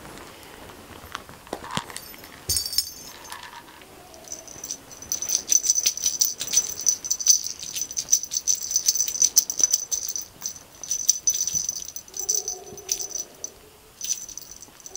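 Small bell on a cat toy jingling in quick rattling shakes, starting about four seconds in and going on until near the end, with a few clicks before it. A kitten gives a short mew near the end.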